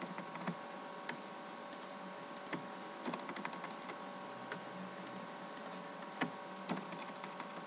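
Irregular light clicks of a computer mouse and keyboard as faces are Shift-clicked one by one, over a faint steady electrical hum.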